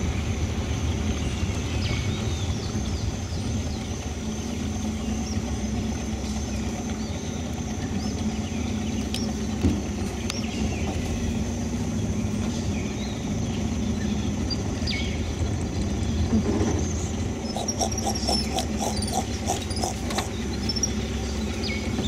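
A small boat's outboard motor running steadily at low speed with a constant low hum, under a thin steady high-pitched drone. A short run of quick pulsed calls comes a few seconds before the end.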